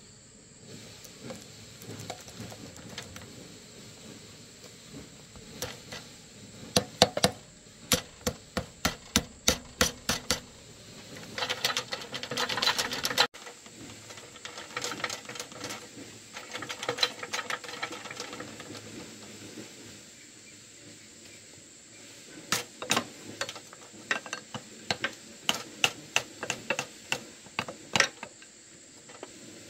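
Wrench clinking on bolts of a mud-caked walking tractor's housing: runs of sharp metallic clicks, about two or three a second, with a harsher scraping stretch near the middle.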